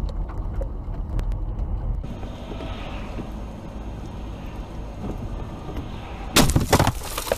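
Dashcam recording from inside a car: steady low road and engine rumble. About six seconds in comes a sudden loud crashing, splashing noise as spray thrown up by a passing truck slams against the windshield.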